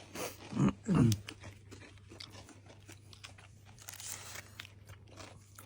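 Crunching and chewing of a crispy pastry snack, a scatter of small crackles as it is bitten and eaten.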